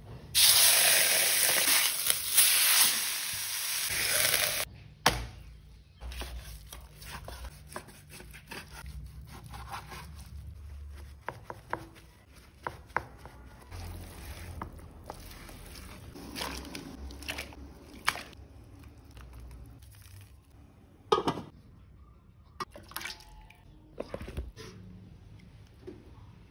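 Hot oil and spice paste sizzling loudly in a wok for about four seconds, cut off suddenly. After that come quieter scattered knocks, clicks and scrapes of beef chunks being handled in a plastic bowl with a wooden board and chopsticks.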